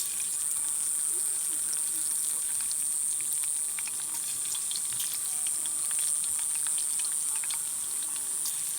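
Steady, unbroken high-pitched insect chirring, with faint murmuring voices and scattered small clicks underneath.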